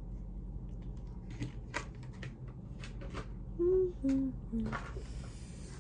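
Soft clicks and lip sounds from a lipstick being applied to the lips. Just after halfway a person hums three short notes, each lower than the last.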